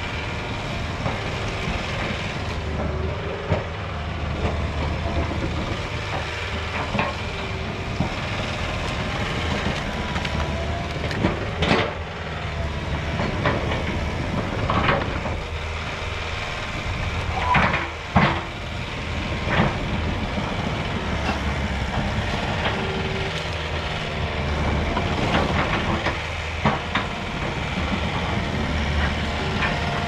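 Crawler dozer with a root rake working brush: its diesel engine runs steadily while the tracks clank and brush cracks, with a few sharp cracks and knocks along the way, the loudest near the middle.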